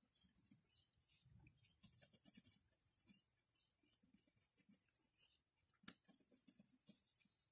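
Faint scratching of a mechanical pencil's lead sketching on paper in short, irregular strokes, with one sharper click about six seconds in.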